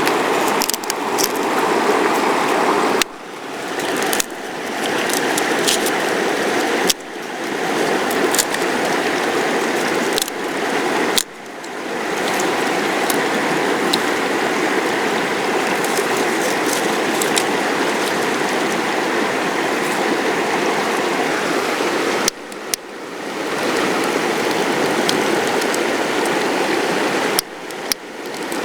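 Steady rushing of a river flowing over rocks, with a few faint sharp ticks. The sound drops away abruptly and swells back up several times.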